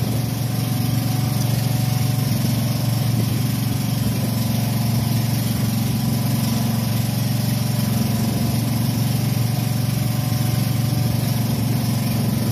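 A small engine running steadily at idle, with an even low hum that holds the same pitch throughout.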